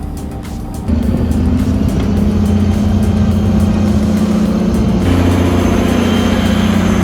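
Heavy diesel machine engine running steadily, jumping louder about a second in, with background music over it.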